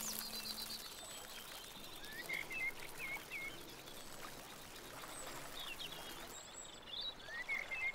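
Faint outdoor ambience: a soft steady hiss with a few short bird chirps scattered through it.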